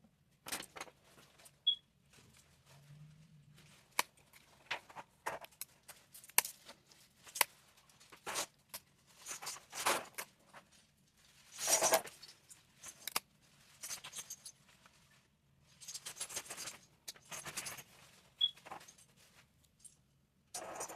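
Small metal hand tools clicking, tapping and scraping against a phone's cracked back glass during repair work, in irregular sharp clicks with a few longer scrapes.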